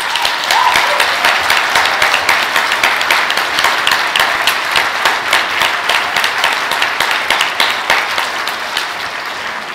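Audience applauding, swelling at the start and easing slightly toward the end.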